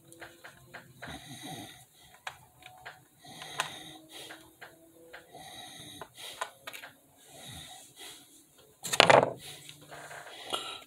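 Heavy breathing through the nose close to the microphone, with small clicks of plastic being handled, and one louder breath near the end.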